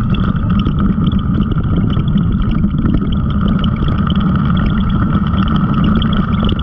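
Side-by-side UTV engine running steadily under way on a rocky gravel trail, with scattered small ticks from the tyres on loose stones.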